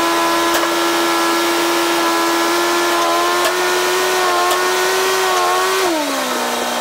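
Small farm tractor's engine running steadily at raised throttle, then slowing smoothly to a lower idle about six seconds in.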